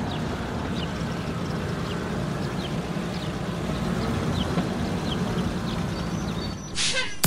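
Cartoon truck engine running steadily, with small birds chirping in the background about twice a second. A short burst of a different noise comes near the end.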